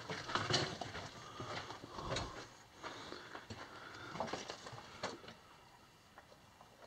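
Faint, irregular footsteps crunching on a gravel and rock floor, with small knocks, stopping about five seconds in.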